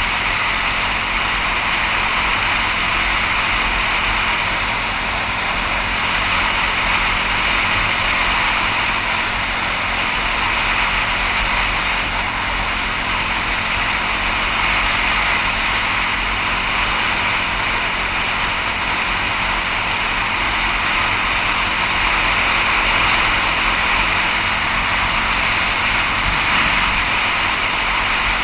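Wind rushing over a helmet-mounted microphone as a dirt bike cruises at steady road speed, its engine running evenly underneath. The rush of wind stays loud and unchanging throughout.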